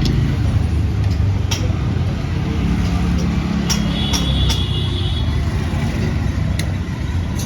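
Steady low rumble of road traffic, with a passing motor vehicle's engine swelling in the middle and a few sharp clicks scattered through.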